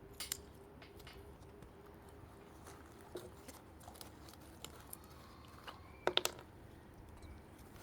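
Quiet handling of a metal clipper blade and sharpening tools: a few light clicks and taps, with a quick cluster of sharper metal clicks about six seconds in.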